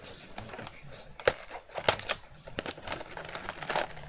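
Scissors snipping at sellotape on a cardboard toy box, with irregular sharp clicks of the blades and rustling of the packaging; the loudest clicks come about a second and a half and two seconds in.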